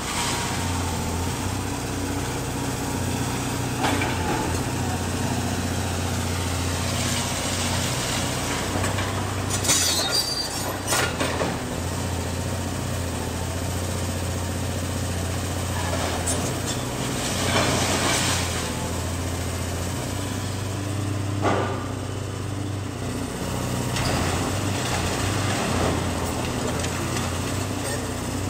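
Caterpillar 330D hydraulic excavator's diesel engine running steadily under load as its demolition jaw tears into a brick house, with crashes and clatter of breaking, falling masonry and debris several times, the loudest about a third of the way in.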